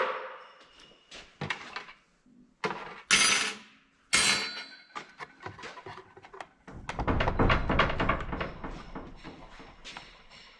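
Parcel being unpacked by hand: a few sharp knocks and clinks of metal parts, a short bright tearing or scraping sound about three seconds in, then a couple of seconds of rustling packing material.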